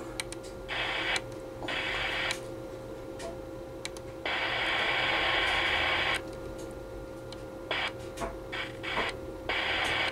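Unidentified interference signal on the AM CB band, heard through a CB radio's speaker: blocks of harsh static-like noise that switch on and off abruptly, from a fraction of a second to about two seconds each, over a steady low tone. The owner says it sounded something like a radar signature, but is not sure.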